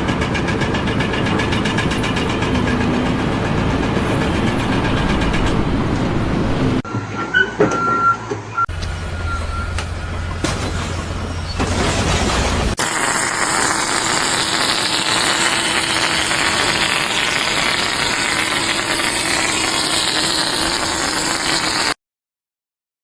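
Loud vehicle and machinery noise across several separate clips, each cut off abruptly, ending in about a second of silence.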